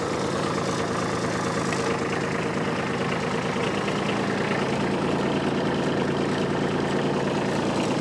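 Kubota B2601 compact tractor's three-cylinder diesel engine running steadily at low RPM.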